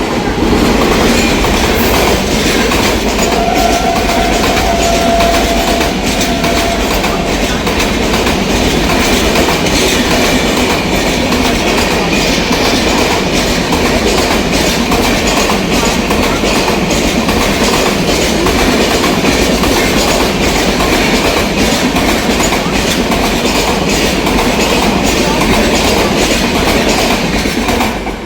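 A train passing through a station at speed: a loud, steady rumble of wheels on rails, with quick clicks of the wheels over rail joints, dropping away sharply at the end.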